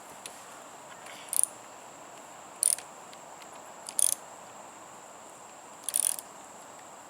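Ratchet wrench worked in four short clicking bursts, one every one to two seconds, on a lawn mower fastener. A steady high insect tone runs behind.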